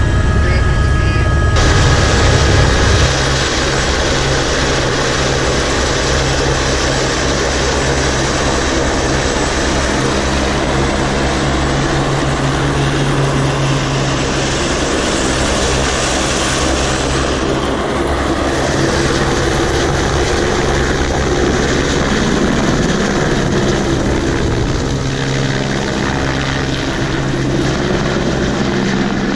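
Helicopter in flight, heard from inside the cabin: a loud, steady rotor and engine drone with a low hum, easing slightly about three seconds in.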